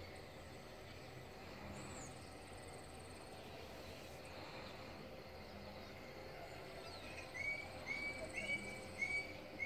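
Dawn countryside ambience: faint high insect trills, then from about seven seconds in a bird repeating a short clear whistled note about twice a second, louder than the rest.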